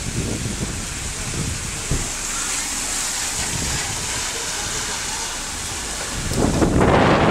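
Heavy rain pouring down steadily, with a louder swell of rushing noise near the end.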